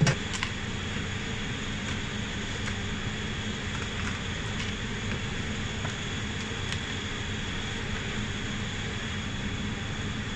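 Steady hum of kitchen ventilation with a thin high whine, opened by a sharp knock as the wooden pizza peel is set down on the steel counter, with a second knock just after. A few faint knocks follow as a rocker knife cuts the pizza on the peel.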